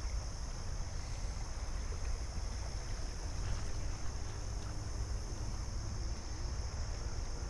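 Outdoor ambience: a steady low rumble of wind on the microphone under a continuous high-pitched insect drone.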